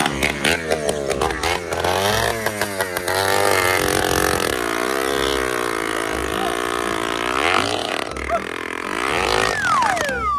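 A small engine running and revving up and down, its pitch wavering, with wind rumbling on the microphone; a tone slides steeply down near the end.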